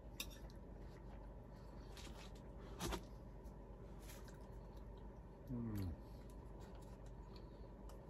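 Quiet room tone with a faint steady hum. A single light tap comes about three seconds in, and a short, falling "mm" of someone tasting cake comes a little past halfway.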